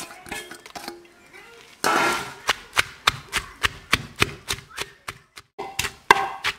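Wooden pestle pounding sliced onion and chili in a clay mortar. Dull knocks come about three times a second, beginning about two seconds in.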